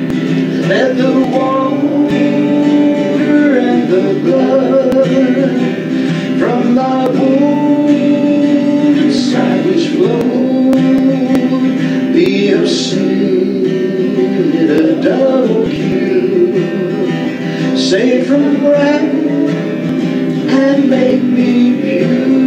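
Live church worship music: a congregation singing over a strummed instrumental accompaniment.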